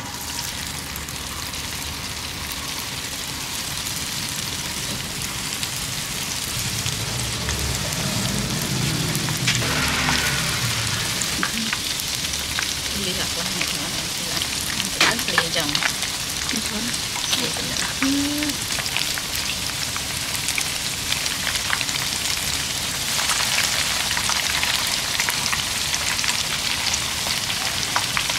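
Sesame-coated glutinous rice balls deep-frying in hot oil: a dense, steady sizzle that grows louder. A few sharp clinks about halfway in, from a metal skimmer stirring the balls.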